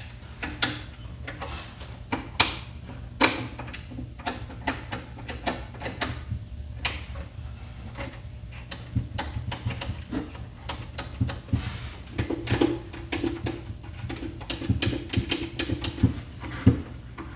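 Front-panel buttons of a Pioneer CT-1280WR dual cassette deck being pressed one after another, giving an irregular run of sharp plastic clicks and clacks.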